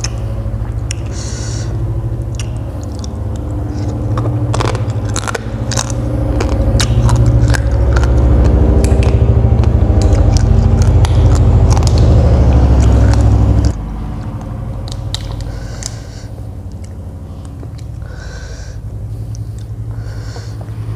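Close-up chewing and crunching of food, with many short crackles and bites. Under it a loud low engine-like hum swells and then cuts off abruptly about two-thirds of the way through.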